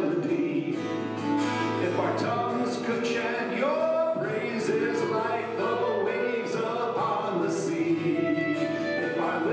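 A man singing a Hebrew song while strumming an acoustic guitar, with the congregation singing along.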